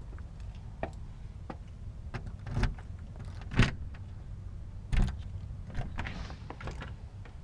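Front-door lock and door being worked with a key: a run of sharp clicks and knocks, three of them louder, about two and a half, three and a half and five seconds in, over a steady low rumble.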